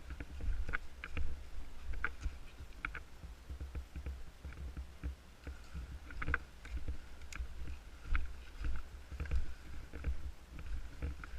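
Low, uneven rumbling of handling or movement on a body-worn camera, with scattered faint snaps and clicks, like someone moving through forest undergrowth.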